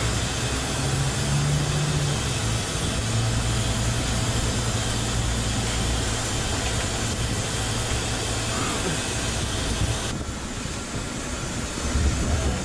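Steady interior noise of a moving van: an even hiss over a low, wavering engine hum. The hiss drops about ten seconds in.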